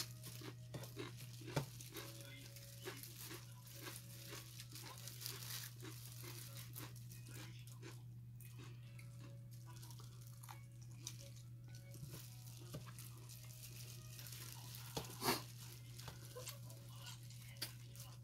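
Eating by hand in disposable plastic gloves: the gloves crinkle and the food is pulled apart, with chewing, in a scatter of small crackles and clicks. The sharpest crackle comes about fifteen seconds in. A steady low hum runs underneath.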